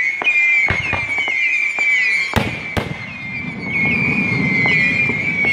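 Fireworks: a steady shrill whistling from ascending whistling rockets, its pitch swooping over and over. Several pops come in the first two seconds, then two sharp cracks about two and a half seconds in, followed by a low rumble.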